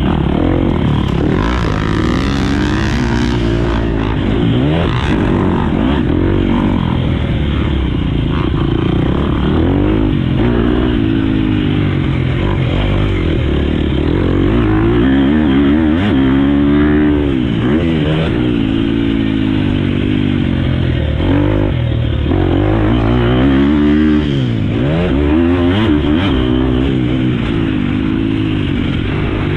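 Husqvarna FC 250 four-stroke single-cylinder motocross bike being ridden hard, the engine revving up and down over and over as the throttle is opened and closed through shifts. The pitch drops off sharply several times before climbing again.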